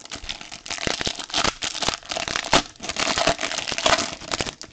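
Silver foil wrapper of a Topps Deco trading card pack crinkling and crackling as it is handled and torn open with the hands. The crinkling stops at the very end.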